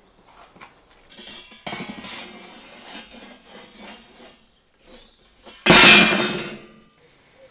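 Metal cookware and utensils clattering and clinking, with one loud clang about three-quarters of the way through that dies away over about a second.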